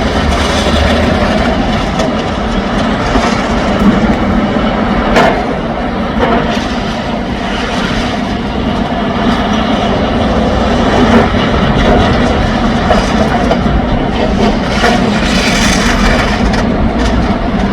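Mobile rubble-recycling crusher running, breaking demolition rubble down into finer aggregate: a steady engine note under a constant clatter and grinding of broken concrete, with a few sharper cracks.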